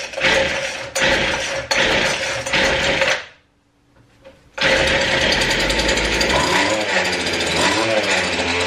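Small two-stroke string-trimmer engine running on the bench after being freed up from sticking: it runs for about three seconds, cuts out, then starts again about a second later and keeps running. In the second half its pitch rises and falls as the throttle is worked.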